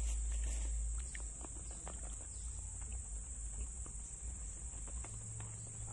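Steady high-pitched drone of insects, with scattered small clicks and a low rumble underneath.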